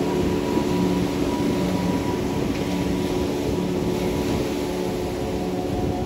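Ocean surf washing onto a sandy beach in a steady rushing rumble, with soft sustained music tones held underneath.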